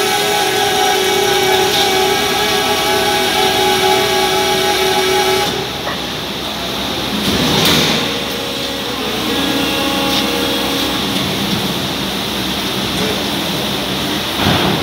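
Chen Hsong SM 850T injection moulding machine running with a steady, many-toned whine that cuts out about five seconds in. A brief loud hiss follows a couple of seconds later, then a quieter, lower hum.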